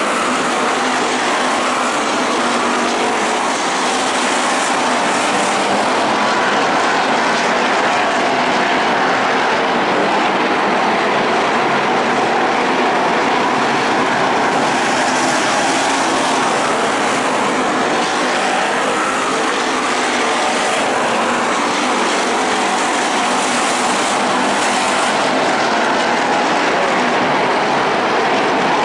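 A field of dirt-track stock cars racing around the oval, their engines blending into a loud, steady din.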